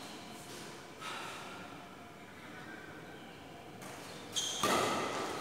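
Quiet, echoing sports-hall room tone with faint distant voices. About four and a half seconds in, a badminton racket strikes the shuttlecock on the serve, a sharp hit that rings on in the large hall.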